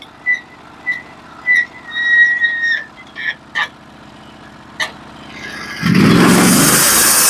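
Norwood HD36v2 portable sawmill's engine idling, then revving up sharply about six seconds in as the mill is brought up to cutting speed. Over the idle come a few sharp clacks and a run of short high chirps.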